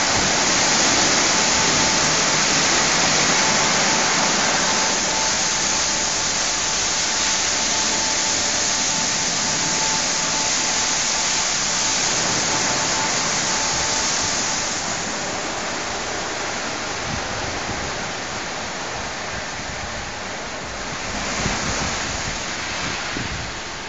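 Rollover automatic car wash running, water spraying over the car in a steady hiss. A faint steady whine sits under the spray and stops about halfway through, after which the spray gets a little quieter.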